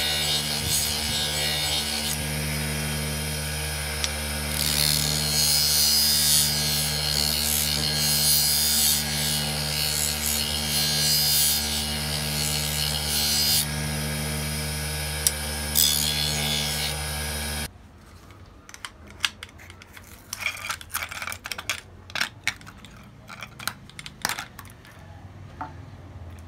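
Grinding wheel running with a steady hum while a steel knife blade is ground against it, giving a hissing grind, loudest in the middle stretch. The sound cuts off abruptly about 18 seconds in, followed by quiet scattered clicks and taps.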